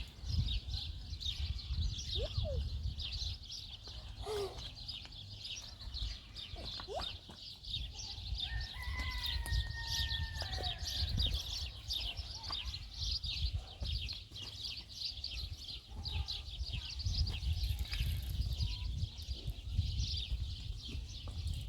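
Many birds chirping densely and without pause, over a low rumble. A longer call at two pitches comes about nine seconds in.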